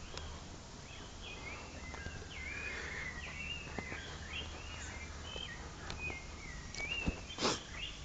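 A bird singing a long string of short whistled notes that slide up and down in pitch, over a faint low rumble. A brief loud noise comes near the end.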